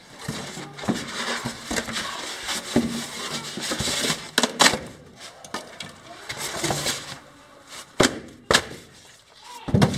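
Slabs of expanded polystyrene (styrofoam) being handled and broken apart by hand: irregular crunching and squeaking with several sharp snaps.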